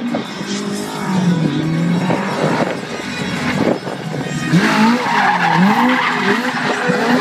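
Small hot-rod-style stunt car's engine revving up and down as it spins on tarmac. Tyre squeal comes in about halfway through and keeps going.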